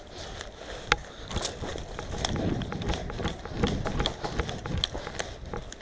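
Close-quarters airsoft skirmish: a string of irregular sharp cracks and clicks, the loudest about a second in, over scuffling movement and footsteps.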